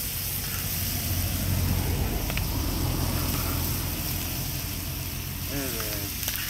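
Tomatoes and peppers sizzling in a frying pan over a bottled-gas burner, a steady hiss throughout. A low rumble swells over the first few seconds and then fades, and a brief voice sounds near the end.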